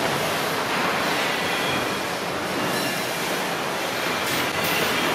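Steady rushing din of a wire-shelving factory floor with its wire welding machines running, an even hiss with no distinct strokes.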